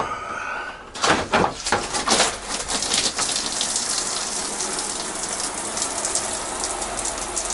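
Hand-held RV shower head spraying into a plastic shower pan. It comes on in uneven spurts about a second in, then settles into a steady spray as the water pump pushes pink RV antifreeze through the plumbing to winterize it.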